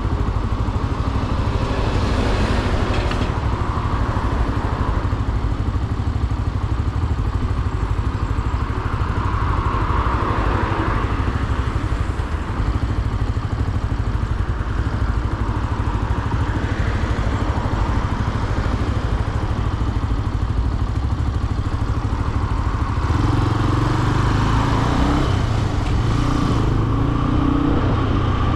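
Benelli BN125 motorcycle's single-cylinder engine running as the bike is ridden in traffic, heard from on board, growing louder about 23 seconds in.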